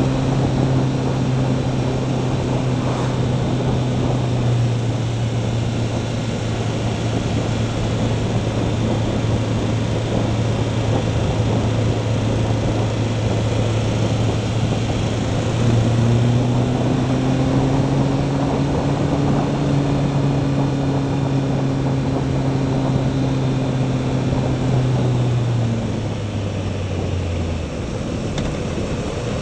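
Motorcycle engine running at steady revs under a constant rush of wind and road noise on a wet road. The engine note steps up about halfway through, then drops in two stages near the end as the bike slows.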